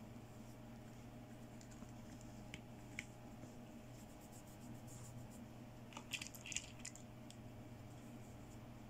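Small plastic toy accessories, a doll's hairbrush and hand mirror, handled and set down on a table: a few faint clicks, then a short cluster of plastic clicks and rattles about six seconds in, over a steady low hum.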